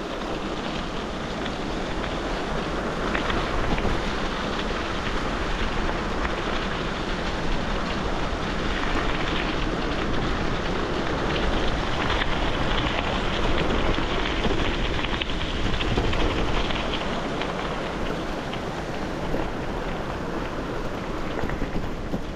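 Bicycle tyres rolling downhill over loose gravel: a steady crunching hiss dotted with small stone ticks, mixed with wind buffeting the microphone.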